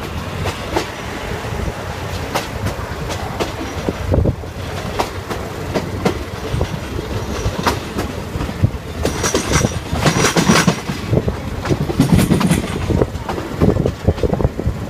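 Thai State Railway ordinary train running, heard from inside the coach: a steady rumble with the wheels clacking over rail joints, louder for a few seconds past the middle with a faint high wheel squeal.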